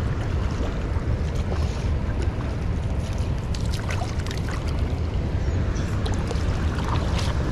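Steady low rushing of a tailwater river's current, heavy in the low end, with a few faint ticks now and then.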